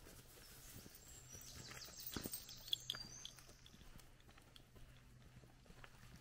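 Soft, irregular footsteps of a walker and a trotting dog on a wet, muddy forest track, the firmest step a little over two and a half seconds in.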